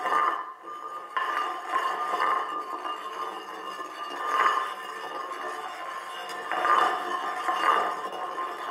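Abstract soundtrack music of layered glassy, metallic ringing tones that hold steady and swell up and down in waves every few seconds.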